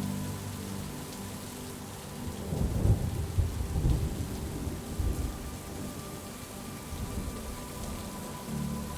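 Steady rain with a low roll of thunder that comes in about two and a half seconds in, peaks, and dies away over about three seconds.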